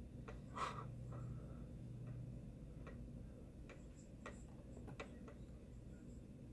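Faint, irregular light clicks and taps, about a dozen spread unevenly, the loudest one about half a second in, over a low steady hum.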